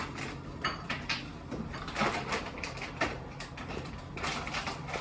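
Close-up eating sounds: irregular crunching and chewing of a Crunchwrap Supreme, over a steady low hum.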